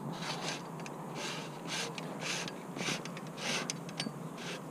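Footsteps on dry grass and fallen leaves, a short crunch about every half second.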